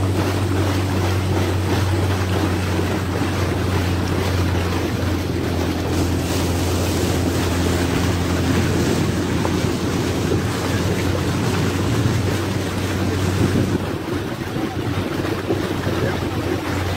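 Outboard motor running steadily as a boat moves through floodwater, with wind noise on the microphone and rushing water over the engine hum. The hiss eases a little near the end.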